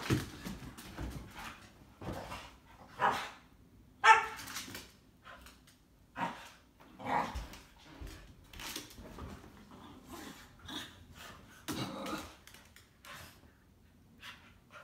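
Two dogs at rough play, a boxer-lab mix puppy and a cairn terrier-schnauzer mix, giving short barks at irregular intervals, the loudest about four seconds in.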